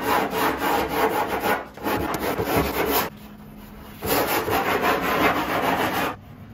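Hand sanding block with coarse sandpaper scrubbing over a cured fiberglass-and-epoxy patch on a windsurf board's nose, smoothing the edge of the patch flat. Three runs of rapid back-and-forth strokes, with short breaks about one and a half and three seconds in; the sanding stops shortly before the end.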